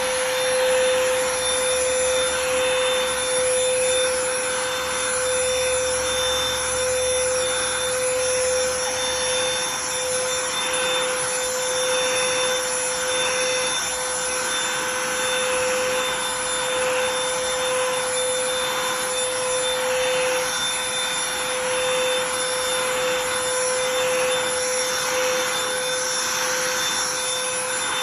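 BLACK+DECKER Dustbuster AdvancedClean+ cordless handheld vacuum running steadily, a high motor whine held at one pitch, as it picks up shed dog hair.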